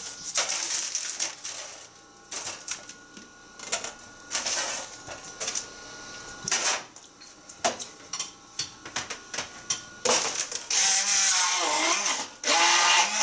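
Thawed strawberries dropped by hand into a glass, landing with short irregular knocks and clatters. About ten seconds in, an immersion blender starts whirring in the glass, its pitch wavering as it chops the fruit; it stops briefly and starts again near the end.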